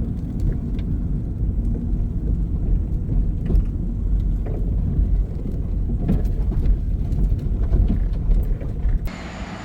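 Car on the move: a steady low road-and-engine rumble with scattered small knocks and rattles. Near the end the rumble cuts off abruptly, leaving a quieter hiss.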